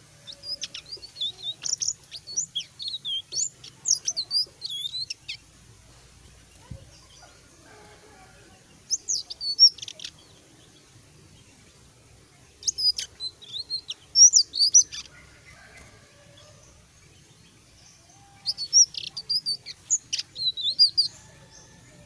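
Caged selendang biru, a blue flycatcher, singing in four bursts of quick, high whistles that slide up and down, with pauses of a few seconds between phrases. The bird is beginning to open up into full song.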